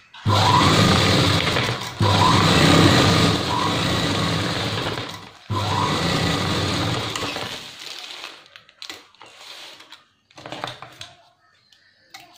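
Domestic sewing machine running while stitching a seam through cotton fabric, in three runs with brief stops between them, then coming to a stop. Afterwards there is only light handling of the cloth and a few small clicks.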